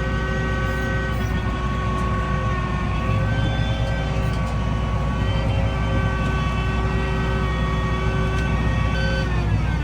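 Farm tractor running steadily under load while spreading straw bedding, with a steady machine whine over the engine's low rumble. The pitch drops near the end as it slows down.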